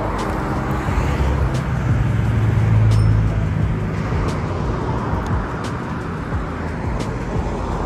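Car driving: steady engine hum and road noise, the hum swelling a little a few seconds in.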